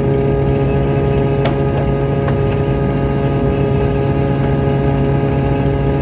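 Fishing boat's engine running steadily: a loud, even drone with fixed tones, and a couple of faint clicks in the first half.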